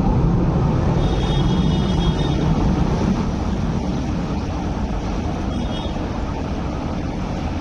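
Garaventa-built 6th-generation Hong Kong Peak Tram funicular car running along its track close by and pulling away: a steady low rumble, with a brief high-pitched squeal about a second in and again near six seconds.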